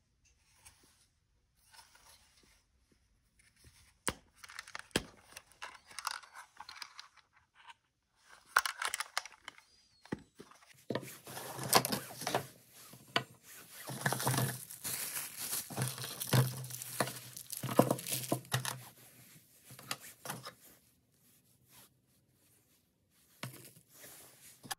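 Plastic packaging bags crinkling and tearing as the trail camera's accessories are unpacked, with scattered clicks and knocks of small parts set down on a wooden tabletop. The crinkling is sparse at first and densest a little under halfway in, then thins out near the end.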